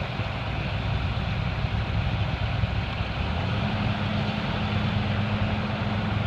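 Vehicle engine running steadily under a steady hiss; about halfway through its pitch steps up and holds, as if revved slightly.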